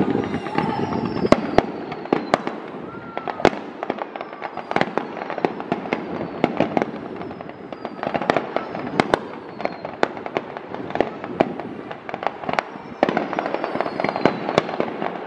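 Fireworks display: a rapid, irregular string of sharp bangs and crackling bursts, with several whistles that fall in pitch.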